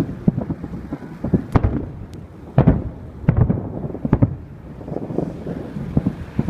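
Fireworks display: shells bursting in a rapid, irregular series of booms and bangs, loudest through the middle.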